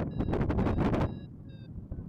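Wind buffeting the microphone in flight, loud and gusty for the first half then easing, with two short electronic beeps from a paragliding variometer about a second in.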